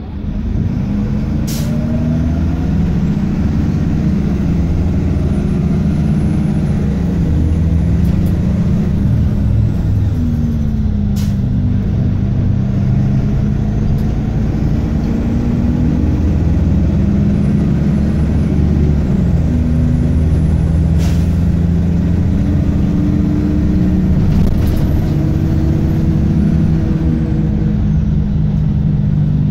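Optare Tempo single-deck bus heard from inside the saloon while under way: the engine pulling steadily, its note stepping in pitch a few times as the automatic gearbox changes gear. Three short sharp knocks come at roughly ten-second intervals.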